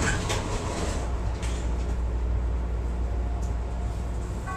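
Chicago 'L' rapid-transit train heard from inside the front of the car as it starts to move off from a station stop. A brief hiss comes right at the start, then a steady low hum and rumble.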